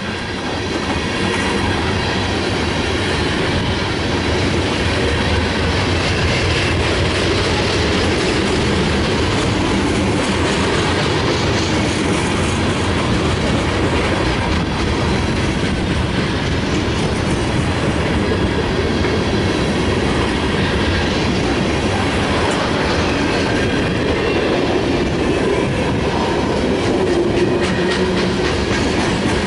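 Tank cars and boxcars of a mixed freight train rolling past, a steady rumble with the clatter of steel wheels on the rails.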